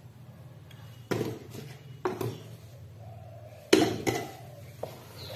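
A few knocks and clinks of a steel spoon against a plastic mixing bowl as flour is spooned in, the loudest a little under four seconds in, over a faint steady low hum.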